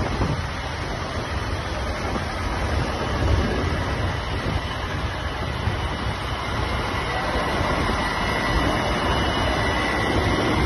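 A procession of diesel tractors driving past in a line, their engines making a steady, dense rumble.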